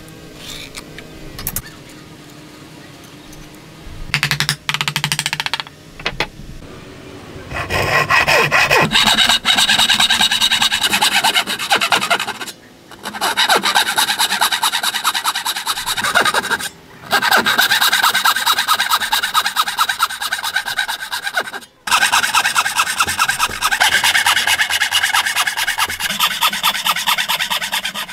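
Hand saw cutting dovetails in a hardwood board: fast, even back-and-forth rasping strokes, in long runs with short pauses between cuts. Before the sawing starts there are a few seconds of quieter, light scratching.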